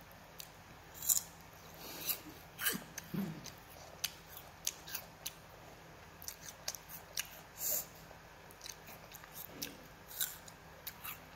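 Biting into and chewing pieces of crisp white fruit, close to the microphone: an irregular run of short, sharp crunches and mouth clicks.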